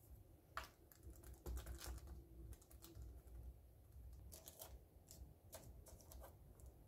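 Faint, scattered light taps and rustles of hands pressing a ball of donut dough flat on a paper circle on a tabletop and pushing a hole through it to shape a ring.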